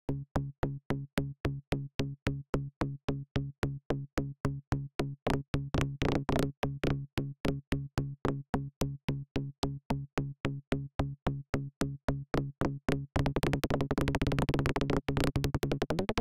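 Electronic music from the Chromium iOS music app: short synth pulses on a steady low note repeat about three times a second. About thirteen seconds in the pulses turn into a dense, rapid stutter, and the pitch sweeps upward right at the end.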